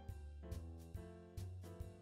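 Quiet instrumental background music with sustained notes struck about twice a second over a soft bass.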